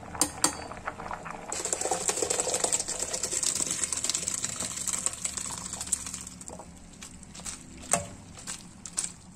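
Hot water and cooked shell macaroni poured from a pot into a stainless-steel colander: the water splashes and drains through the holes, starting about a second and a half in and tapering off after a few seconds. A couple of sharp metal clinks come at the start, and a few drips and taps come near the end.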